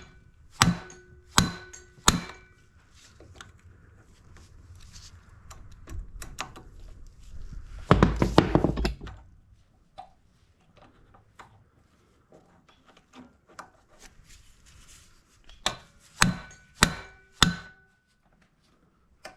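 Sharp metal-on-metal hammer blows on a tool set in a stuck, half-stripped timing cover screw of a small engine, each with a short metallic ring. There are three evenly spaced strikes near the start and three more near the end, with a brief loud clatter about eight seconds in.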